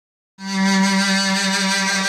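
Mey, a Turkish double-reed wind instrument, comes in about half a second in on one long held note.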